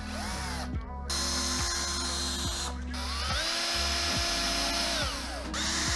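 Cordless drill-driver running bolts into the burner's aluminium manifold block. A short burst at the start is followed by two longer runs of about two seconds each, the motor whine rising as it spins up, holding, then falling away as it stops.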